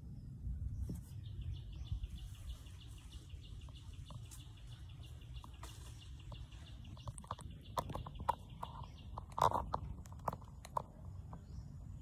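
Outdoor ambience among trees: a rapid high-pitched trill runs from about a second in until about nine seconds, over a low rumble. Near the end comes a run of small taps and clicks, the loudest about nine and a half seconds in.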